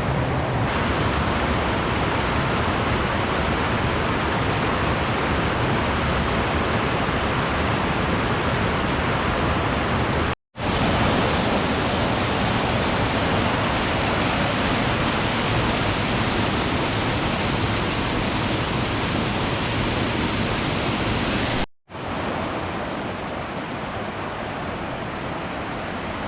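Steady rushing of a mountain creek and waterfall. It drops out twice for a moment where the recording cuts, about ten and twenty-two seconds in, and is somewhat quieter after the second cut.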